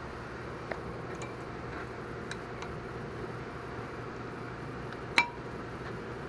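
Light metallic clicks of a brake pad being slid into the caliper bracket and its slide clips, with one sharper ringing clink about five seconds in, over a steady background hum.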